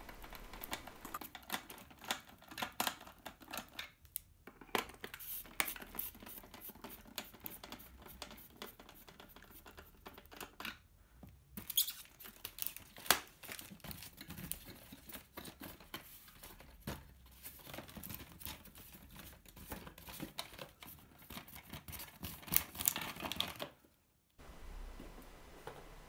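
Screws being undone with a screwdriver from a styrofoam packaging base, and the toy car being worked free of the foam and its plastic cover: irregular scraping, clicking and crinkling handling sounds. The sound cuts out briefly near the end.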